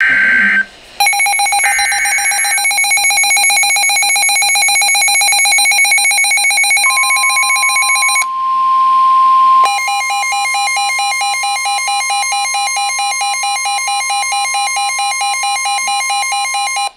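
NOAA Weather Radio warning alert on a Midland weather radio: a short buzz of the digital alert header, then the radio's electronic alarm beeping in a rapid pulse. A steady high warning tone comes in about seven seconds in, and near ten seconds the beeping changes pattern and carries on with the tone.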